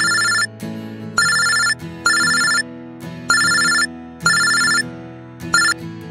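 Mobile phone ringing with an old-style telephone-bell ringtone: rings in pairs about a second apart, each pair coming round every two seconds or so, over background music. The last ring is cut off short near the end, as the call is about to be answered.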